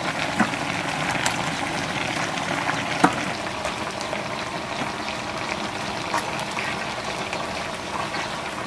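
Braised turtle and bones simmering in a large wok, the thick sauce bubbling and sizzling steadily as it reduces. A few sharp clicks of metal tongs against the pan and bones, the loudest about three seconds in.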